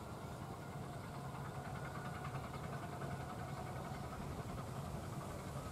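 Diesel locomotive engine running steadily at low revs as the locomotive rolls slowly toward the camera, a steady low hum.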